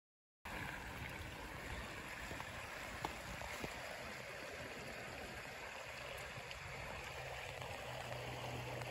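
Steady rush of running water, like a stream, cutting in about half a second in after a moment of dead silence, with a faint low hum growing toward the end.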